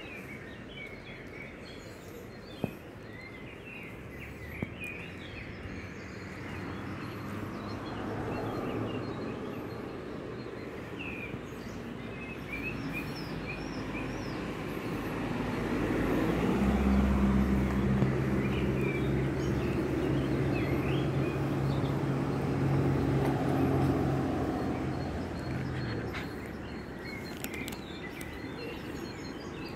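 Outdoor ambience: small birds chirping on and off, and a motor vehicle's engine running steadily that swells up near the middle for about ten seconds, then fades. There is a sharp click a couple of seconds in.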